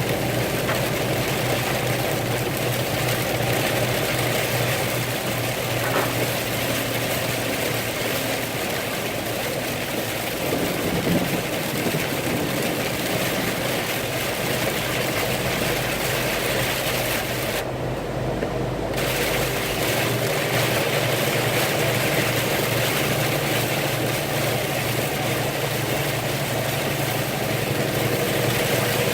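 Vehicle engine idling with a steady low hum, under a steady hiss across all pitches.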